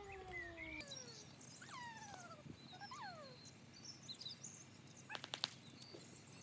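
Faint animal cries, several drawn-out calls that each slide down in pitch, repeated every second or so. A quick run of sharp clicks comes about five seconds in.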